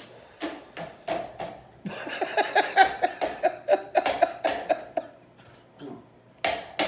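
A stick knocking and tapping against a light fixture in a quick run of sharp knocks, about three a second, pausing about five seconds in before a few more knocks near the end.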